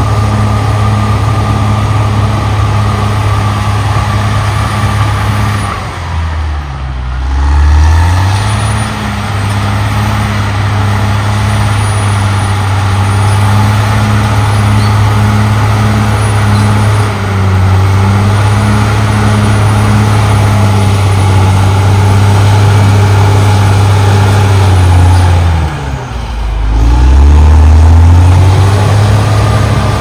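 CAT D6R XL bulldozer's diesel engine running loud and steady while the dozer pushes dirt with its blade. Twice, about six seconds in and again near the end, the engine note drops and then climbs back up.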